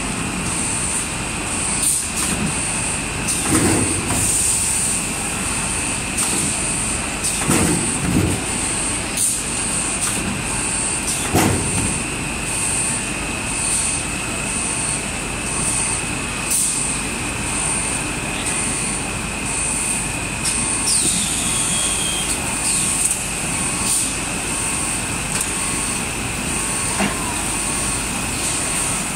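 PE stretch film production machine running: a steady mechanical din with a constant high whine, occasional dull knocks, and a brief falling squeal about two-thirds of the way through.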